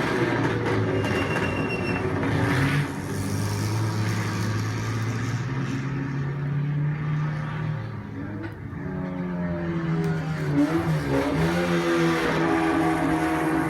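Racing sports car engines going through a turn: one engine's pitch drops in a step as the car backs off and shifts down, the sound fades about two-thirds of the way through, and then another car arrives with its engine pitch sliding and stepping as it shifts down.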